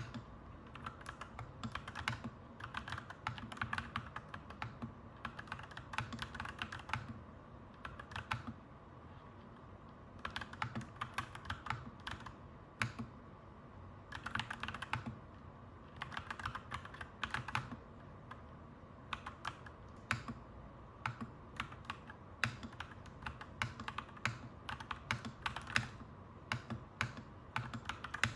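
Clacky mechanical keyboard typing in runs of quick key clicks, with pauses of a second or two between runs, over a steady low background hum.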